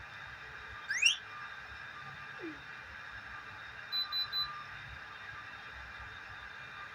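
Three short, high electronic beeps in quick succession about four seconds in, over a steady electrical hum. They are preceded about a second in by a brief, louder rising chirp and then a short falling glide.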